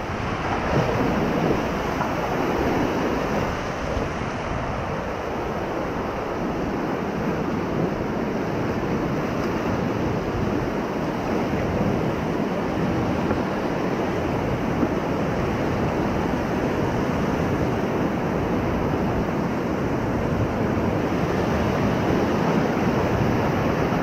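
Whitewater rapids rushing steadily around an inflatable raft.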